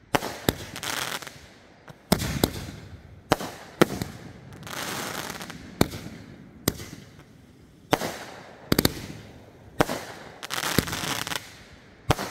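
Aerial fireworks launching and bursting overhead: a dozen or so sharp bangs at uneven spacing, roughly one a second, several trailed by a crackling hiss.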